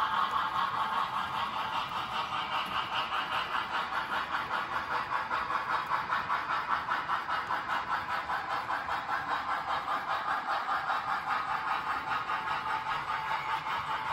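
HO scale model freight train running on the layout's track: a steady mechanical whirr and clatter with an even, rapid pulsing throughout.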